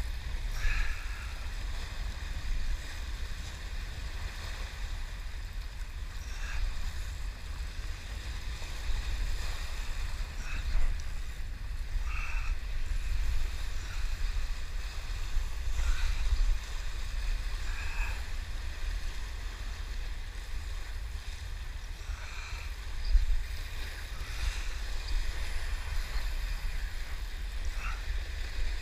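Surf washing and breaking over shoreline rocks, under a heavy low rumble of wind on the microphone, with short faint higher blips every couple of seconds.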